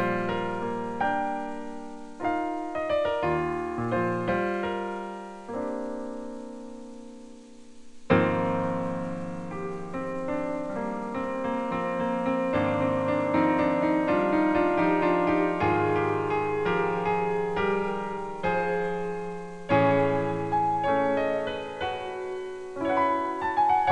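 Piano music. A held chord fades away about six seconds in, then a loud chord about eight seconds in opens a busier passage of many quick notes.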